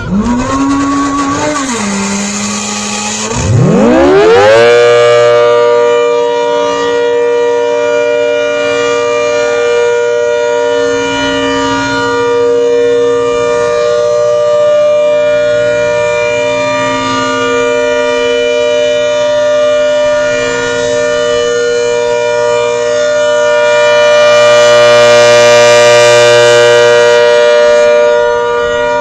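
ACA Hurricane 130 outdoor warning siren winding up to full pitch about four seconds in, then sounding a steady Alert tone. Its loudness swells and fades slowly, loudest near the end.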